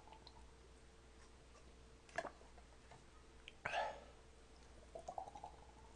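Faint drinking and mouth noises as small bottles of yogurt drink are gulped down one after another: a sharp sound about two seconds in, a louder, breathy noise near four seconds, and a quick run of small clicks about five seconds in.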